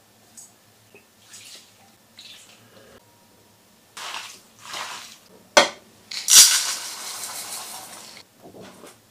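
Food prep in a stainless steel bowl: light sprinkles of seasoning onto raw sliced meat, then hands squishing and mixing the wet meat. A sharp knock on the bowl follows, then sweet potato starch poured into an empty steel bowl with a steady hiss for about two seconds.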